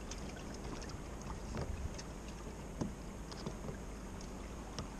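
Kayak paddle strokes in the water: small splashes and drips at irregular intervals over a steady low hiss.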